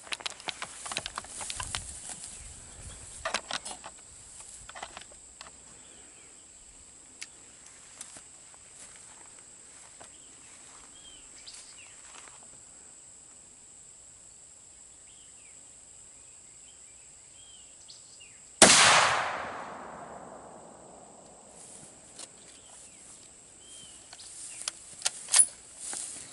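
A single rifle shot from a Savage Model 110 bolt-action in .30-06, sudden and very loud, ringing away over about two seconds, some two-thirds of the way in. Before it come scattered small clicks and knocks of the rifle being handled.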